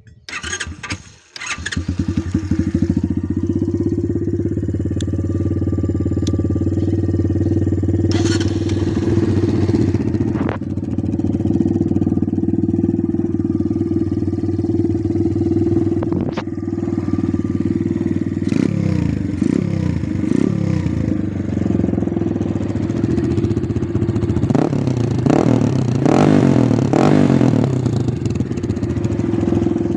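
Small motorcycle engine starting about a second in, then running steadily, with two clusters of short throttle blips later on.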